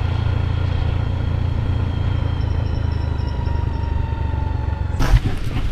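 Motorcycle engine running steadily under way, a low even hum heard from on board. About five seconds in, a sudden thump and a noisier hiss take over.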